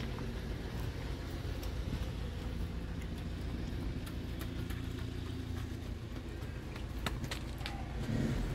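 Steady low rumble of a running engine, with a few light clicks about seven seconds in.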